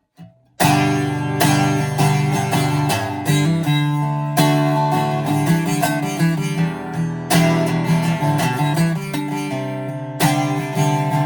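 Greco D-70 acoustic guitar being strummed in chords, starting about half a second in with sharp, repeated strokes that ring between changes.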